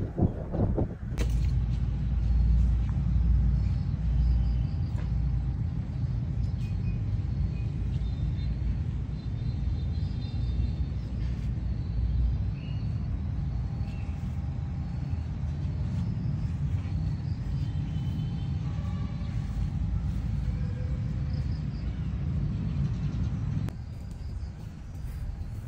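A steady low rumble, deepest in the first half, that drops off a little near the end.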